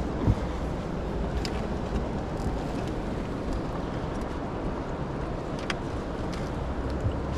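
Steady rushing noise with a low rumble: fast river water below a hydro dam, with a few faint clicks.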